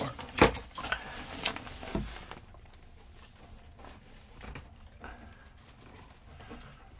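Handling noise from wiring and connectors in a battery compartment: one sharp knock about half a second in, then a few lighter clicks and rattles over the next second and a half, then faint rustling.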